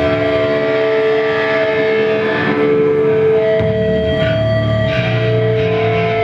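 Live band playing loud distorted electric guitars, with long ringing held notes; the low end gets heavier about three and a half seconds in.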